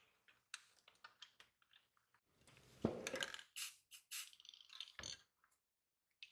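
Small clicks, taps and scrapes as gloved hands handle a metal toy tractor and small tools on a rubber bench mat, with a louder cluster of knocks about three seconds in and another knock near five seconds.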